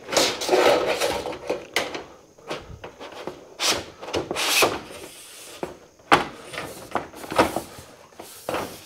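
Corrugated sheet-metal wall panel being handled and set into place: irregular scraping and rubbing, with a few sharp knocks, one of the loudest about six seconds in.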